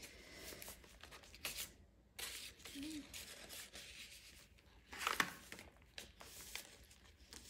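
Paper rustling and sliding as the heavy, dyed pages and tucked cards of a chunky handmade paper journal are handled and a page is turned: several short swishes, the loudest about five seconds in.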